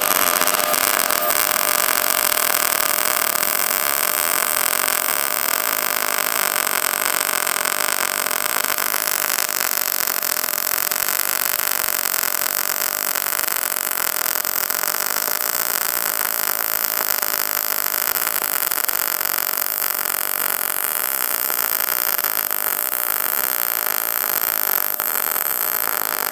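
MIG welding arc from an HTP MIG 2000i inverter welder running a continuous bead on thin steel, with 0.030 wire and 75/25 argon-CO2 shielding gas at about 15 volts and 135 inches per minute. It is a steady, even noise that stops right at the end as the arc is broken.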